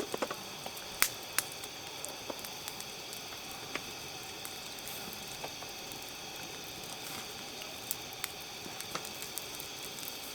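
Wood campfire crackling: scattered sharp pops and snaps over a steady soft hiss.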